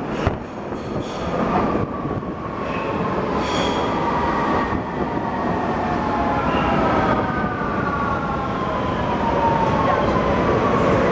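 Vienna U-Bahn U6 metro train pulling in along the platform: loud running and wheel noise with a whine that falls steadily in pitch as the train slows.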